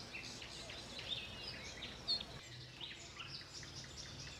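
Many small birds chirping and twittering, quick high calls overlapping, with one sharp high note about two seconds in. A faint low steady hum comes in about halfway.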